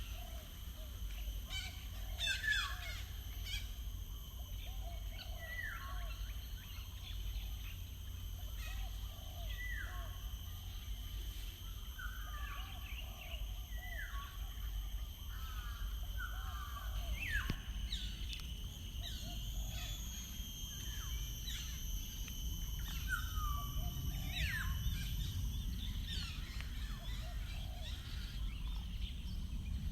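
Wild birds singing, one repeating a short falling note every second or two among other chirps, over a steady high-pitched ringing and a low background rumble.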